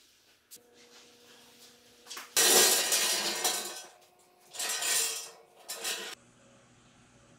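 A steel rolling body stand on casters being pushed across a concrete floor and set in place, its metal frame clanking and rattling in two loud bursts, the first about two and a half seconds in and the second around five seconds.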